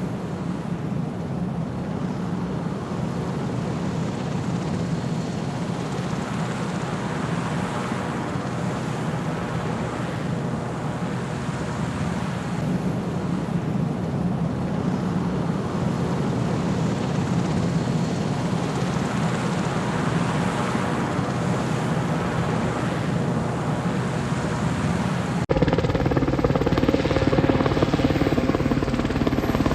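Westland Sea King twin-turboshaft helicopter flying overhead: a steady rotor and engine drone that slowly swells and fades. About 25 seconds in it cuts suddenly to a louder, closer rotor sound.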